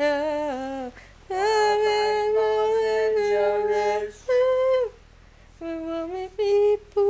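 A woman singing a wordless tune in long, high held notes, with short breaks between phrases.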